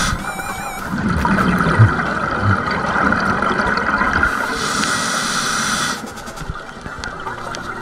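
Scuba diver breathing through a regulator, heard underwater: a bubbly exhale rumble, then a hissing inhale about four and a half seconds in.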